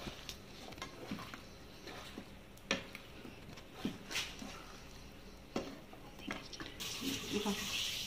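Paneer cubes and capsicum pieces being mixed by hand with curd in a non-stick pan, with scattered light knocks and taps against the pan. A steady hiss comes in near the end.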